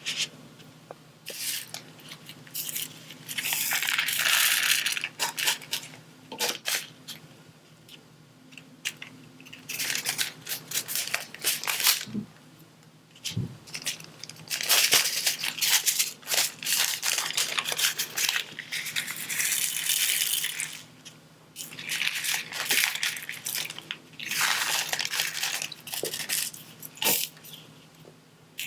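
Close-up crinkling and sticky peeling of a diamond painting canvas's plastic cover film, with small rattling clicks from the resin drills and tools. It comes in several bursts a few seconds long, with scattered clicks between.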